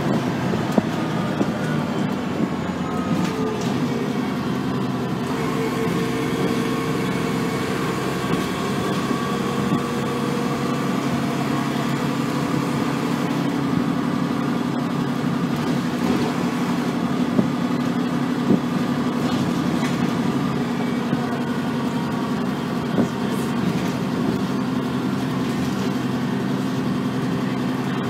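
ADL Trident double-decker bus's diesel engine and transmission heard from inside the passenger saloon while underway: a steady drone with a whine that slides slowly in pitch as road speed changes, and a few short rattles from the body.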